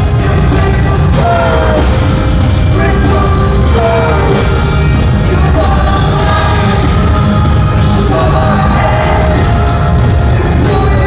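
Rock band playing live, loud: a male singer's vocal over drums and the full band.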